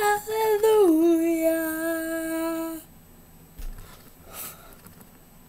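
A girl's voice singing one long held note, dropping a step in pitch about a second in and stopping after about three seconds.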